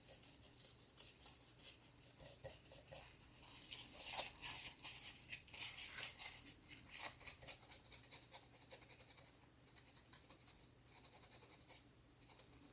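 Faint, quick scratching and light ticking of a small tool working over a circuit board, loudest in the middle.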